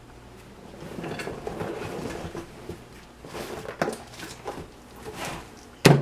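Cardboard box rustling as a car wiring harness is pulled out, its wires and plastic connectors clicking and knocking together, with one sharp loud knock near the end.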